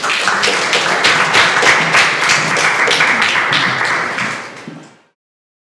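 Audience applauding, a dense clatter of many hands clapping that fades out about five seconds in.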